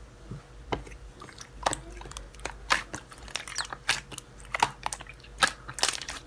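Irregular sharp clicks and crunches close to the microphone, about two a second.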